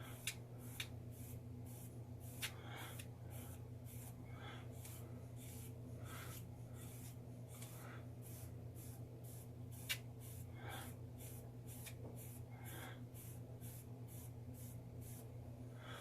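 A comb raking through a damp, oiled beard in quick repeated strokes, about two or three a second, each a short faint scratch, with a few light clicks.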